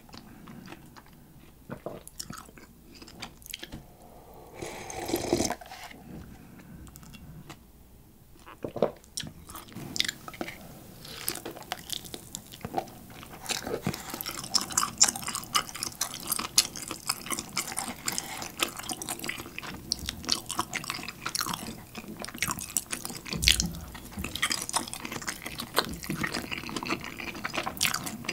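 Close-miked eating sounds from instant cup noodles: broth sipped and swallowed from the cup at first, then, from about ten seconds in, a dense run of small wet clicks and slurps as the noodles are chewed.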